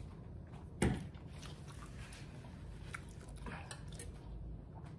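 Quiet chewing of a mouthful of seared scallops and noodles, with one sharp louder mouth sound about a second in.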